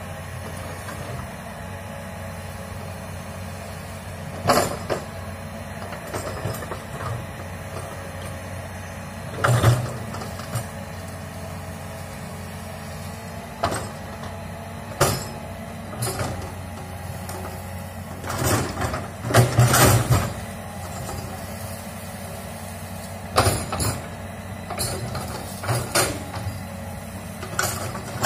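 Komatsu hydraulic excavator's diesel engine running steadily while it digs, with about a dozen loud, sharp knocks and cracks from the work scattered over it, several bunched together about two-thirds of the way in.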